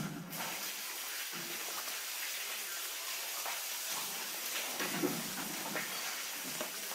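Steady hiss of barn background noise, with a few faint knocks.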